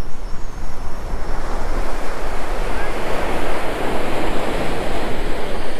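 Ocean surf breaking on the beach, the rush of a wave swelling to its loudest about three to four seconds in, with wind buffeting the microphone.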